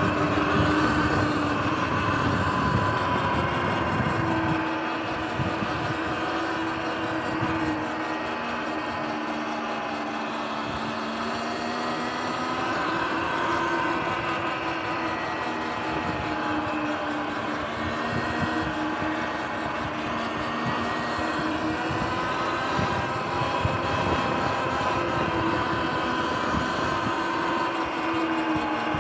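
Sur-Ron electric dirt bike's motor and drivetrain whining while riding, the whine's pitch drifting up and down with speed, with wind rumbling on the microphone.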